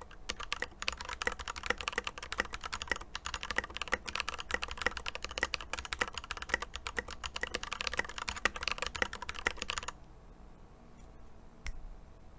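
Fast typing on an Epomaker EP84 mechanical keyboard with lubed Glorious Panda tactile switches and Tai-hao double-shot keycaps: a dense run of keystrokes that stops about ten seconds in, then a single click near the end.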